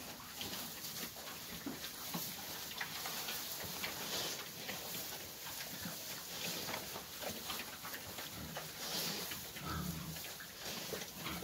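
Duroc piglets grunting as they shift about in a heap on straw bedding, with rustling and crackling straw throughout. A deeper grunt comes near the end.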